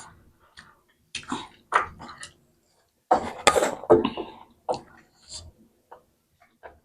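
A person coughing and clearing their throat in several short bursts; the loudest comes about three seconds in.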